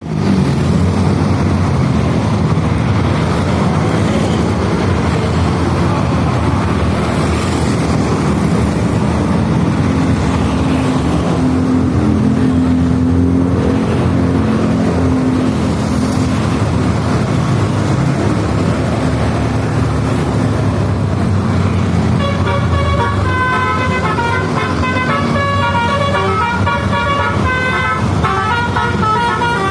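A bus's diesel engine runs steadily. From about three-quarters of the way through, a telolet basuri multi-tone musical horn plays a quick melody of short stepping notes over it.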